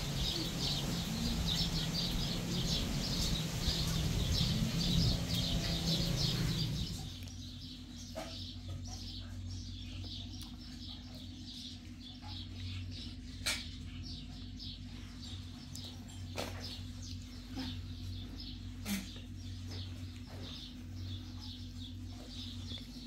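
Many small birds chirping rapidly together over a low rumble. About seven seconds in, it all stops abruptly and gives way to a steady low hum with a few sharp clicks.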